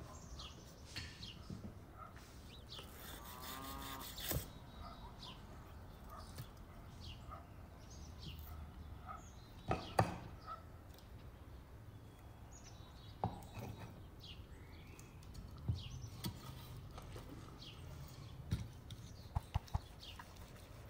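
Scattered short bird chirps, with one brief, drawn-out bird call about three to four seconds in. A few sharp knocks fall among them, the loudest about ten seconds in.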